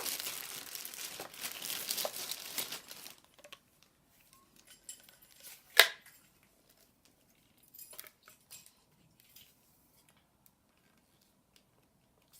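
Packaging crinkling and rustling as it is handled, stopping about three seconds in. This is followed by one sharp click a few seconds later and a few faint clicks after it.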